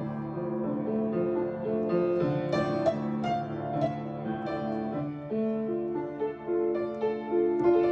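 Background piano music, a melody of separate notes over held lower notes.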